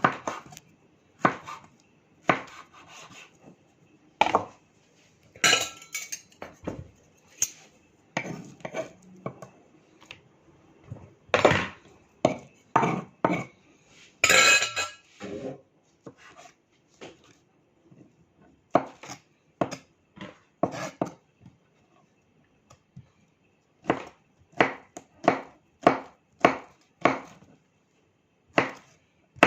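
Knife chopping mango on a cutting board: a series of irregular knocks, some with a brief clatter, pausing briefly a little past the middle.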